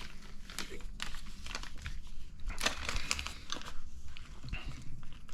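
Irregular crinkling and small clicks from hands handling plastic kit parts bags and small plastic parts.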